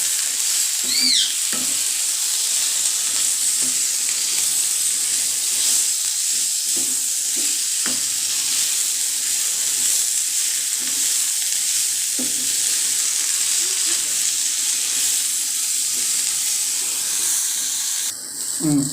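Curry leaves and musumusukkai (Mukia maderaspatana) leaves sautéing in hot oil in a pan, with a steady sizzle while they are stirred. A few sharp knocks of the stirring spoon against the pan come through. The leaves are frying until they wilt.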